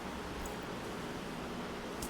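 Steady background hiss of room tone, with no distinct event.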